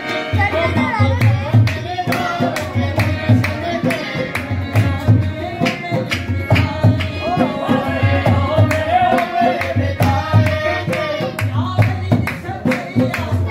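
Qawwali music: a voice singing a wavering melody over tabla and a driving low drum rhythm, which comes in just after the start, with frequent sharp percussive strokes.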